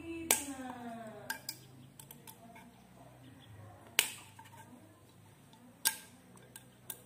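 Sharp metal clicks and clinks from a hex key and small screws as the neck of a Ka-band VSAT transceiver is unscrewed by hand. A few separate ticks come seconds apart, the loudest about four and six seconds in, each ringing briefly.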